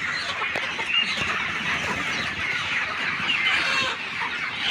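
A large flock of ayam kampung (Indonesian native village chickens) clucking and calling over one another in a steady, overlapping chorus.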